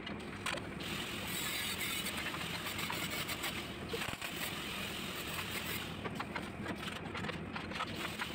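Small metallic clicks and rattles of steel plates and hand tools being handled at a welding bench during fit-up, over a steady workshop hiss that grows brighter for a few seconds about a second in.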